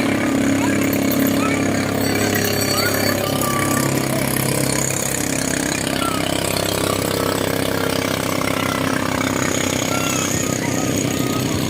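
Boat engine running steadily, with a fast low pulse.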